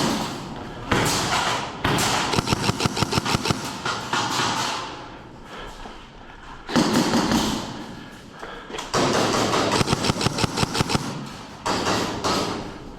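Airsoft guns firing in rapid full-auto bursts: several long strings of fast, evenly spaced shots, each string lasting a few seconds.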